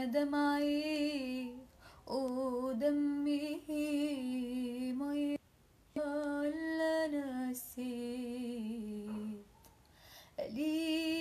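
A woman singing alone with no accompaniment, in long wordless phrases held on sustained notes with vibrato. She makes three long phrases with short breaks between them, then starts a fourth near the end.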